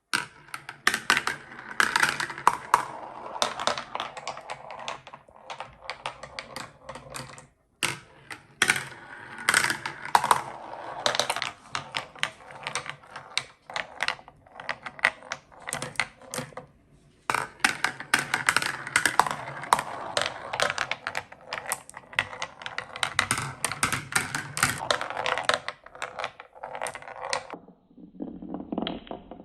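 Marbles rolling and clattering down a handmade wooden track: a dense, fast stream of sharp clicks as they knock against the wood and each other. The clatter stops briefly twice, about 8 and 17 seconds in, and turns softer and lower near the end.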